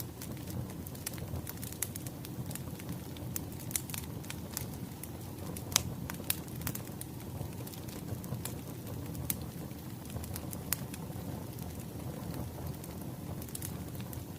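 Wood fire crackling: a steady low rumble of burning logs with irregular sharp pops and snaps, the loudest about six seconds in.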